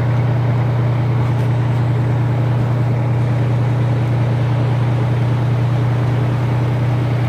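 Fire engine's diesel engine running steadily, a constant low drone with no change in pitch or level.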